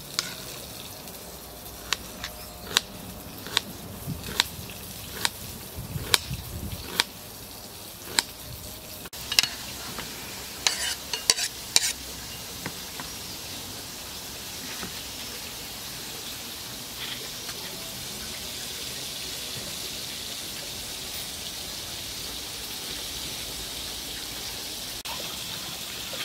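Knife slicing a red onion on a cutting board: a sharp tap against the board about once a second for the first several seconds, then a quicker cluster of clicks and scrapes. After that, a steady hiss.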